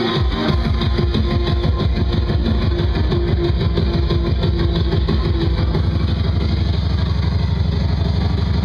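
Loud, bass-heavy electronic dance music from a DJ set, recorded over club speakers, with a dense, fast-pulsing bass line; the deepest bass thins out about six seconds in.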